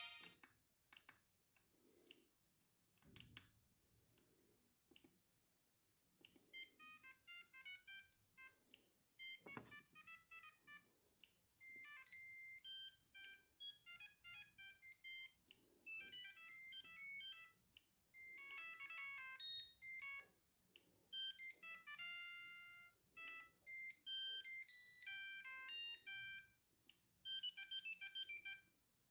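Siemens CXT65 mobile phone playing a polyphonic ringtone through its small speaker: a melody of short, bright notes that starts faintly after a few seconds of near silence and a couple of clicks, and grows louder.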